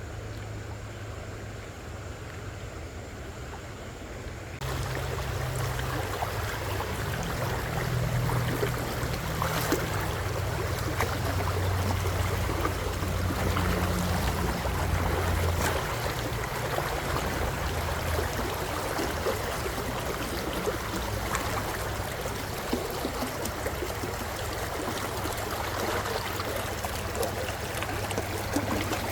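Creek water running, picked up on a phone's built-in microphone, growing suddenly louder about five seconds in, with an uneven low rumble underneath.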